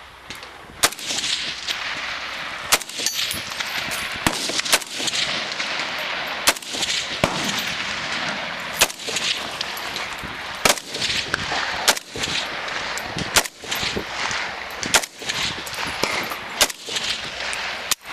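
AR-15 and AK-47 rifles fired rapidly at the same time: a long string of shots, the louder ones coming every second or two with many quieter shots between, over a continuous wash of echo.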